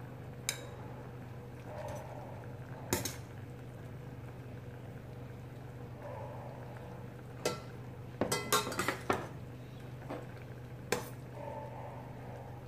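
A metal serving spoon clinking against a stainless steel pot and white ceramic ramekin bowls as creamy stew is spooned out: single clinks a few seconds apart, with a quick run of several clinks about eight seconds in. A steady low hum sits underneath.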